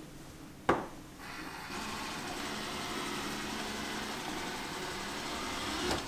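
Bagotte BG800MAX robot vacuum cleaner starting a cleaning run: a single sharp click under a second in, then its suction motor and brushes spin up and run steadily on the highest suction setting.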